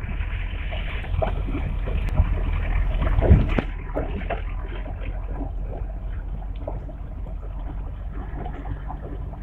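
Vehicle driving over a rough, rocky mountain dirt track, heard from inside: a steady low engine rumble with knocks and rattles from the bumps, the loudest jolt a little over three seconds in.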